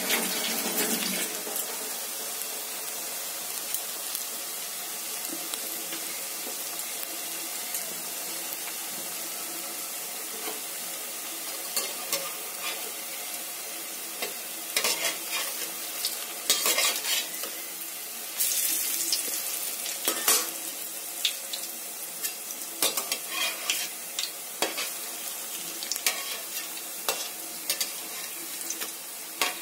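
Cabbage pakoras sizzling steadily as they deep-fry in hot oil in a wok. From about halfway through, a slotted metal spatula scrapes and clicks against the pan as it turns them.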